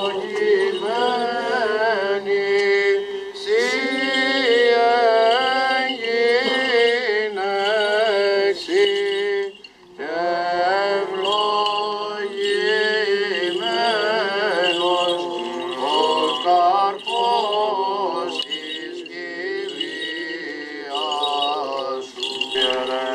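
Byzantine chant: male voices sing a slow, ornamented Greek Orthodox hymn over a steady held drone note (the ison). The singing breaks off briefly about ten seconds in.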